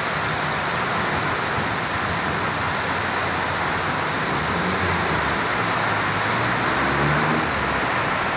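Heavy rain pouring steadily, a dense even hiss. A low hum swells in under it about halfway through and fades near the end.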